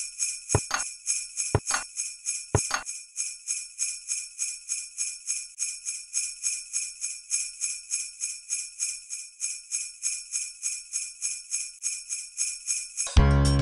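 Jingle bells shaken in a steady rhythm, about four or five shakes a second, with a few low thuds about a second apart during the first three seconds. Music with plucked notes cuts in just before the end.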